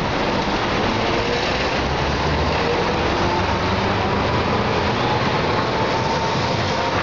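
Electric streetcars running on street tracks amid road traffic: a steady wash of traffic and rail noise, with a faint slowly rising whine.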